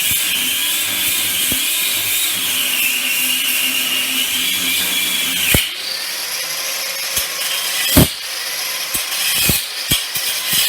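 A handheld power tool running under load while cutting off seized nuts, its whine wavering in pitch. It stops abruptly a little past halfway, and a high hiss with scattered clicks and knocks follows.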